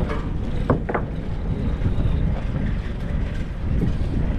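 Fishing boat's engine running steadily with a low rumble, with two short squeaks about a second in.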